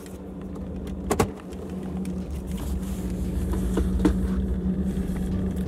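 Car running and driving, heard from inside the cabin: a steady low engine and road rumble with a hum that grows louder as the car picks up speed. A single sharp knock sounds about a second in.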